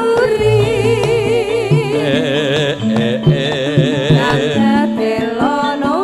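Javanese campursari music in langgam style: a melody line holds long notes with a wide, wavering vibrato over a steady bass accompaniment.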